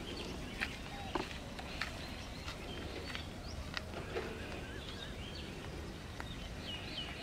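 Rural outdoor ambience: a low steady rumble of wind, with faint footsteps on a dirt path about every half second in the first few seconds, and birds chirping, one trilling near the end.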